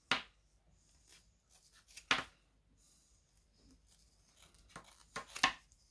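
Small scissors snipping through a doll's rooted hair close to the scalp: a sharp snip at the start, another about two seconds in, and two more in quick succession near the end.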